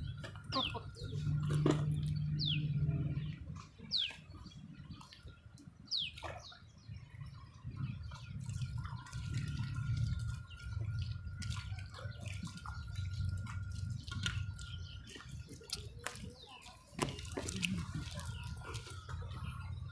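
Small splashes and drips of water at the pond's edge, with short falling bird whistles, five of them in the first six seconds.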